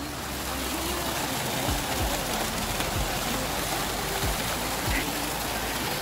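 Shallow stream running over rocks and moss in small cascades: a steady hiss of flowing water.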